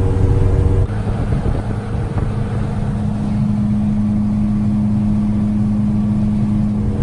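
Jeep driving at steady highway speed: a constant drone of engine and road noise, whose pitch changes abruptly about a second in and then holds a steady hum.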